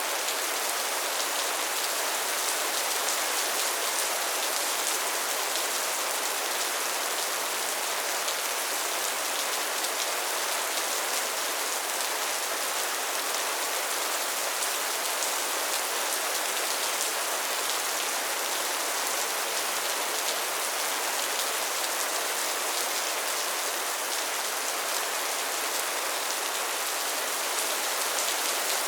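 Steady heavy rain falling and pattering on surfaces, a dense even hiss with fine drop ticks throughout.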